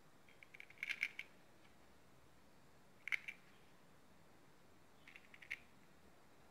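Small plastic fuse beads clicking and rattling as they are picked up and pressed onto a plastic pegboard: three short clusters of light clicks, about a second in, about three seconds in, and again near the end.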